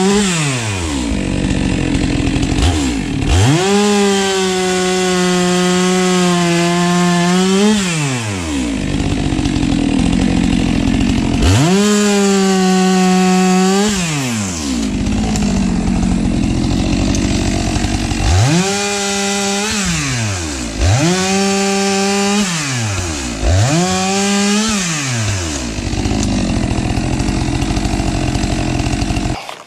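STIHL MS 462 chainsaw bucking firewood logs: it is revved to full throttle six times, holding each cut for about one to four seconds, and drops back to idle in between. It cuts off suddenly near the end.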